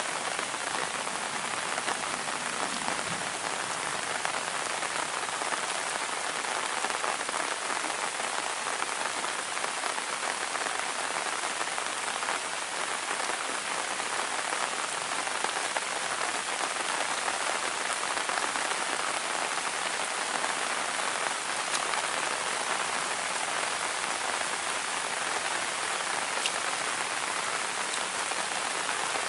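Heavy rain falling steadily, a dense even hiss of countless drops hitting surfaces.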